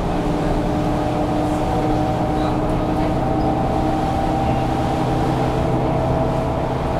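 Interior sound of a Mercedes-Benz O530 Citaro city bus standing still with its diesel engine idling. It is a steady low rumble with a constant whine over it, heard inside the passenger cabin.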